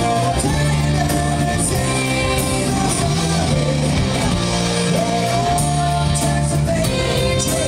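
Live rock band playing: a male lead singer sings into a microphone over drums and keyboards, with cymbals striking through it.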